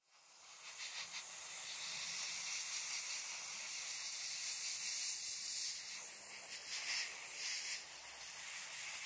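Handheld sandblast gun with a bottle hopper blasting abrasive onto a steel cleaver blade: a steady hiss of compressed air and grit that builds up over the first second.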